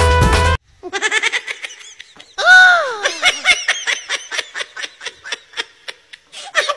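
Music cuts off about half a second in, followed by rapid pulsed vocal sounds, about five a second, like laughing or chattering. About two and a half seconds in there is one loud call that rises and then falls in pitch.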